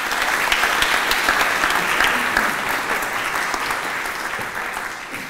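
Audience applauding, the clapping strongest at the start and dying away toward the end.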